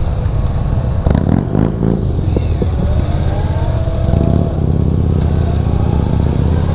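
2016 Indian Scout's V-twin engine running under way at road speed, a deep steady rumble that swells briefly about four seconds in.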